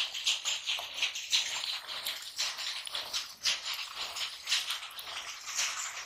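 Hands squelching and slapping through soft, watery mud while digging, a quick, irregular run of wet strokes, several a second.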